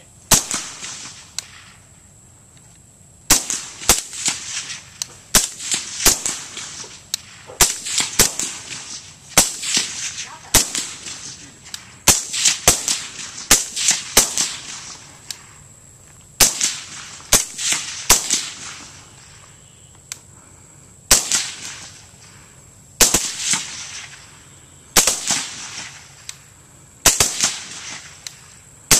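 Two suppressed 5.56 mm carbines firing single shots: a Bushmaster ACR with an AAC M4-2000 suppressor and an AR-15 carbine with a Surefire FA556 suppressor. A steady string of sharp cracks, about one a second with a couple of short pauses, each followed by a brief echoing tail.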